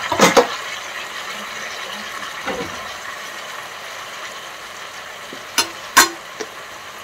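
Chopped vegetables (onions, ivy gourd, drumsticks, okra, green chillies) sizzling steadily in oil in a cooking pot. Over the sizzle come a few sharp knocks and clatters, two near the start and two near the end.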